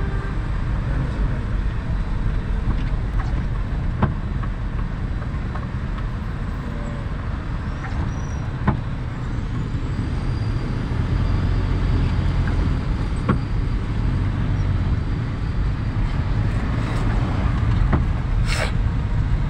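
Vehicle engine and road noise heard from inside the cabin in slow traffic, a steady low rumble with scattered light clicks and a short hiss near the end.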